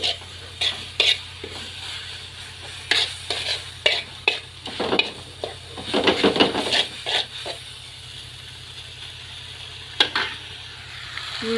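Instant noodles being stir-fried dry in an aluminium wok: irregular scraping and tossing strokes of a utensil against the metal over a steady sizzle. The stirring stops about two-thirds of the way through, leaving the sizzle alone, with one sharp clack near the end.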